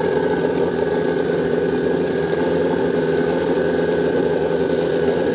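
Pro Street drag-racing motorcycle engine idling steadily at the start line before launch, an even, unchanging loud note with no revving.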